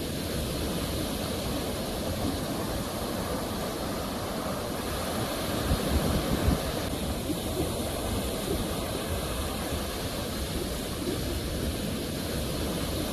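Ocean surf: waves washing ashore in a continuous rush, with a slightly louder surge about six seconds in.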